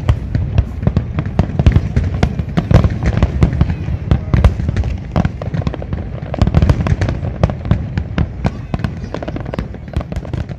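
Aerial fireworks display: a dense, irregular barrage of shell bursts and crackling, several bangs a second over a constant low rumble.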